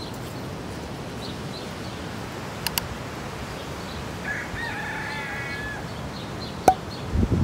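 A rooster crowing once, a drawn-out call of about a second and a half starting about four seconds in, over the steady hiss of ocean surf.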